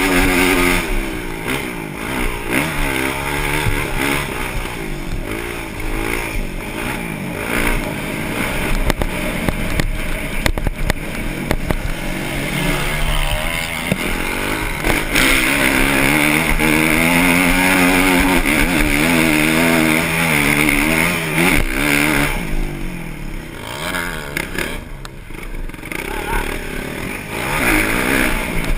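Motocross bike engine heard from on board, revving up and falling back again and again as the rider works the throttle around the track. The engine eases off for a few seconds about three-quarters of the way through, then picks up again.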